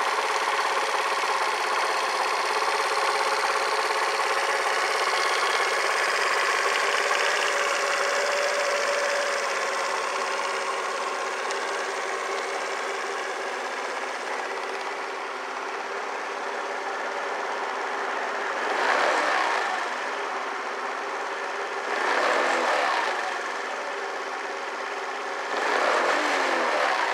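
Suzuki Address V50 scooter's 49cc four-stroke single idling steadily, then blipped three times near the end, each short rev rising and falling back to idle.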